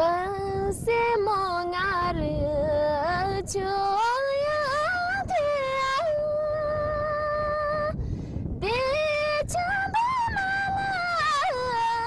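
A woman singing solo without accompaniment, in long held, sliding notes with ornamented turns. She breaks off for a breath about eight seconds in, then carries on.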